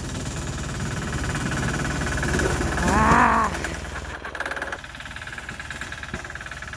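Small single-cylinder 6 HP diesel engine of a garden tractor running with a steady diesel knock, dropping lower and quieter a little after the halfway point. About three seconds in, a short wavering call rises and falls in pitch over the engine.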